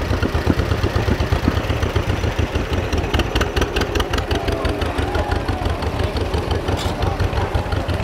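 John Deere Model M tractor's two-cylinder engine running at low speed with a steady, rapid low beat as it pulls a passenger wagon.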